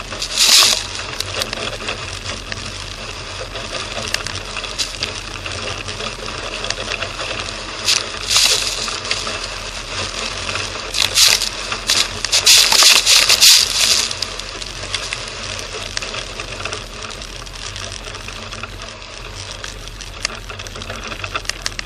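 Fiat Panda 4x4 driving over a snowy track as heard from its roof: a steady engine drone under a fast mechanical rattle, broken by a few sharp hissing bursts, the longest about a second and a half long just past the middle.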